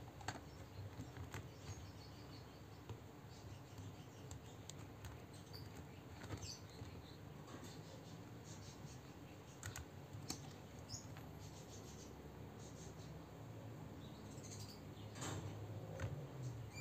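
Faint scattered clicks and light taps of hard plastic toy animals being handled and knocking together in a plastic crate, over a low steady hum.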